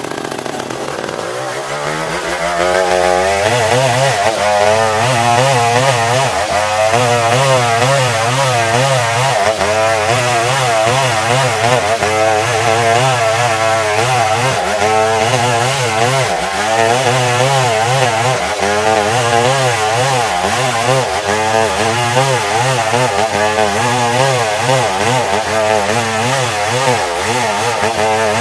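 Stihl 070 two-stroke chainsaw revving up about two seconds in, then running at full throttle as it rips a log lengthwise into planks, its pitch wavering under the load of the cut.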